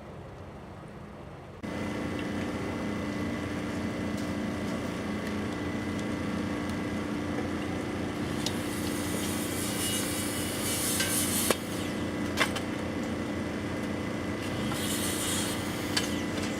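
Track-construction machinery running steadily, with a few sharp knocks and patches of hissing scraping over it. The machine noise cuts in suddenly about a second and a half in.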